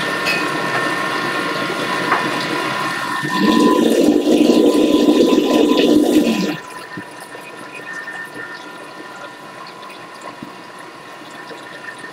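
Thermomix running at speed 5, its blades churning thick cheesecake batter over a steady motor whine. From about three and a half seconds in the churning grows louder and sloshier while the measuring cup is out of the lid opening. At about six and a half seconds it drops suddenly quieter and more muffled, and the machine keeps running.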